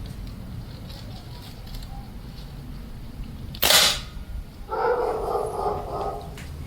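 A single shot from a Weihrauch HW97K spring-piston air rifle in 4.5 mm (.177) cracks about halfway through. A dog barks a second later.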